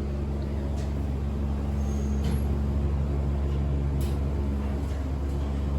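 Elevator car travelling down: a steady low hum of the car's ride and drive, with a few faint clicks.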